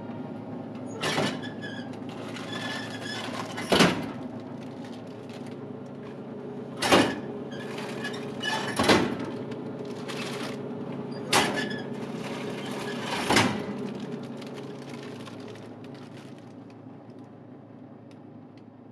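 Plastic pickup flap of a snack vending machine knocking as bags of chips are pulled out through it, six sharp knocks a couple of seconds apart. Underneath is a steady low hum that fades toward the end.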